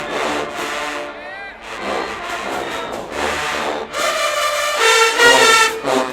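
Marching band brass section cutting in loudly with sustained full chords about four seconds in, after a stretch of band sound pulsing about twice a second with voices mixed in.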